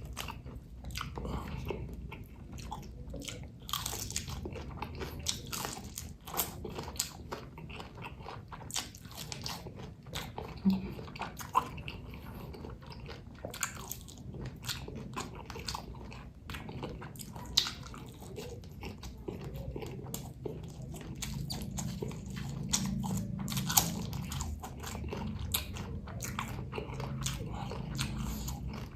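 Close-miked mukbang eating: shrimp and stuffed chili being bitten and chewed, with irregular, dense crunching and a few sharper, louder crunches scattered through, over a low steady room hum.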